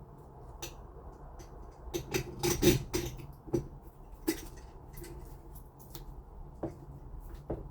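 Clinks and knocks of hard lock parts and tools being handled against a door, a quick cluster about two to three seconds in, then single knocks spaced out.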